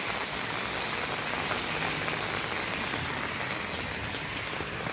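Heavy rain falling steadily on an open umbrella held overhead.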